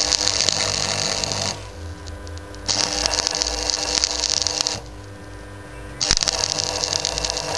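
Stick welding: the arc of a coated electrode crackling on rusty steel tubing, in three runs of about one and a half to two seconds, broken by pauses of about a second. A steady hum continues underneath.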